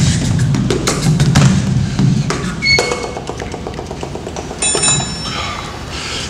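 Background music carried by percussion: dense sharp strikes for about the first two seconds, then sparser and quieter, with a couple of short ringing notes.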